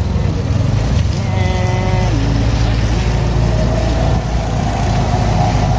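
Bus musical 'telolet' horn (Basuri type) playing a tune of stepped notes that jump up and down in pitch, ending on a longer held note, over the low rumble of the bus engine.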